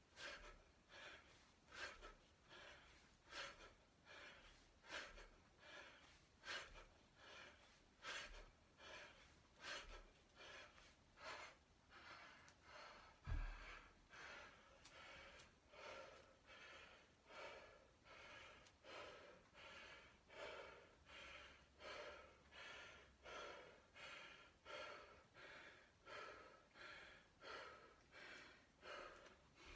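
Hard, rhythmic breathing of a man doing heavy kettlebell swings, one sharp breath about every 0.8 s. About a third of the way in there is a single heavy thud as the 40 kg kettlebell is set down on the wooden floor. The even panting then carries on as he recovers.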